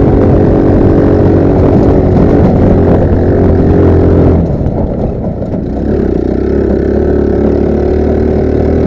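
Roketa GK-06 go-kart's GY6-type engine running hard under throttle, easing off about four and a half seconds in, then running on steadily at a lower pitch.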